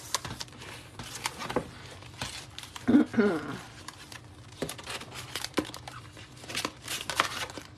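Clear plastic packaging sleeve and paper crinkling and rustling as hands handle them, in many small crackles. A brief voiced murmur comes about three seconds in.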